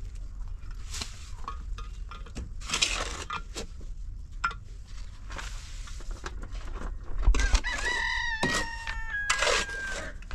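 A rooster crowing once, a single long call of about a second and a half, about three-quarters of the way through, among short scraping and knocking sounds.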